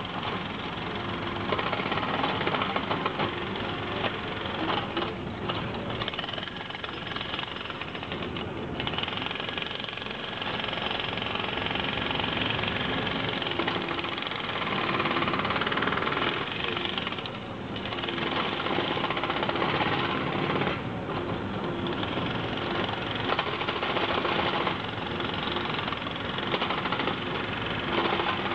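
Construction work: a mini excavator's engine running under continuous rapid hammering, as of concrete being broken, which lets up briefly a few times.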